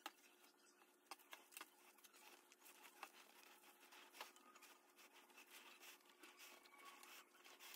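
Near silence, with faint scattered rustles and light clicks of hands handling a gathered cotton sleeve and a cloth measuring tape.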